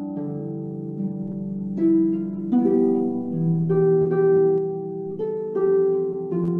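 Concert harp playing slow music: plucked notes and chords left to ring into one another, with a new chord every second or so.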